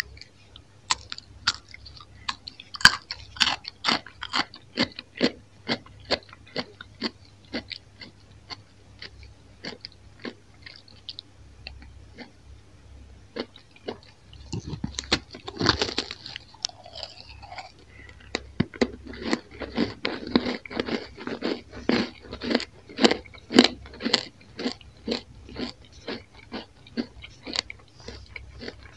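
Close-up crunching bites and chewing of crisp toasted Roumi-cheese bread slices: a long run of sharp crackles, with a louder bite about halfway through and a dense stretch of crunching after it.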